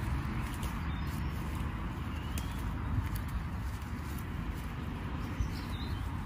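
Hands picking wild garlic leaves from the woodland floor: faint rustles and small clicks of leaves and stems over a steady low rumble.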